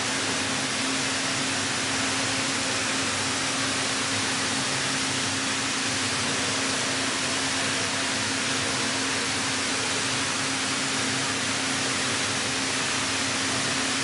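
Heller four-roll CNC plate rolling machine running as it bends a steel plate: a steady hum under an even hiss, with no knocks or changes.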